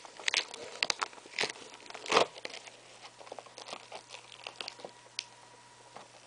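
Packaging of a VHS tape crinkling and tearing as it is opened by hand: an irregular string of crackles and snaps, the loudest about two seconds in, thinning out in the second half.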